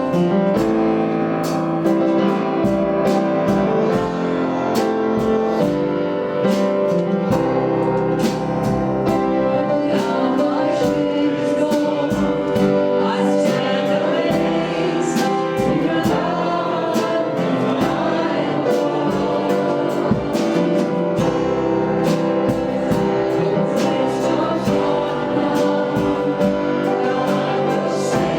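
Worship music: a group of voices singing a gospel-style praise song over instrumental accompaniment, with no break.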